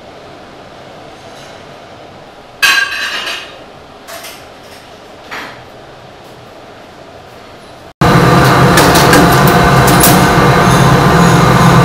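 Koi splashing at the surface of a pond: one larger splash about two and a half seconds in and a couple of smaller ones after it. Then, from a sudden cut, a commercial stainless-steel steam cabinet running loudly and steadily, with a few metal clinks.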